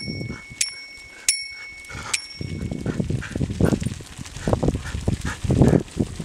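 A bicycle bell rings three times in the first two seconds or so. After that, rough low growling sounds from a running dog come and go.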